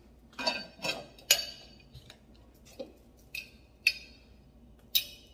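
Metal lid clinking against a hammered-glass canister as it is fitted on and handled: three sharp clinks in quick succession about half a second in, then a few more spaced-out clinks, each with a brief ring.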